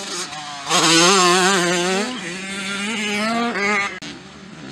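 Motocross bike engine revving as it passes close by, its note wavering up and down with the throttle. It gets loud about a second in and drops away near the end.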